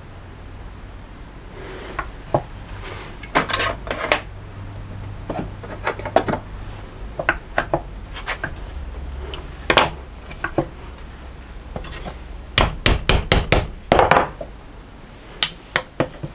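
A screwdriver scraping and prying at a small rusty metal wedge lodged in the end of an old wooden hammer-handle stub, working it loose. Scattered metallic clicks and short scrapes, with a quick run of sharp clicks about three-quarters of the way through that is the loudest part.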